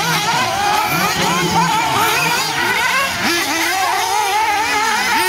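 Several nitro-powered 1/8-scale RC buggies and truggies racing at once, their small glow-fuel engines whining and revving up and down over one another as they brake and accelerate through the corners.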